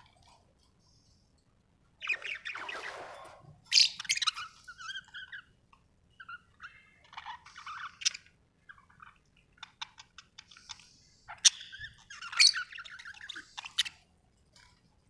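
Budgerigars chirping and chattering in irregular bouts of warbles, squawks and quick clicks, starting about two seconds in after a brief quiet.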